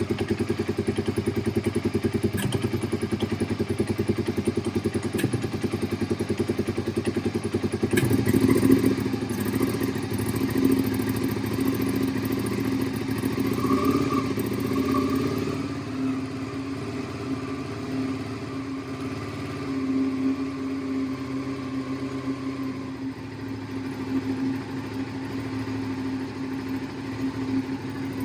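Suzuki SV650's V-twin engine idling with a rapid even pulse, picking up and getting louder about eight seconds in, then settling back to a steady run.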